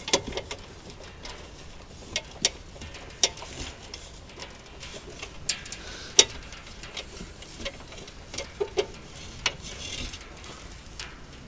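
Irregular sharp clicks and light knocks of a metal under-panel side piece and its fasteners being handled and fitted under a car, the loudest about six seconds in.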